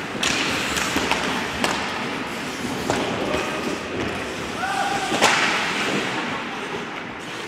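Ice hockey play in a rink: a string of sharp knocks from sticks and puck on the ice and boards, the loudest about five seconds in, with a player's short shout just before it.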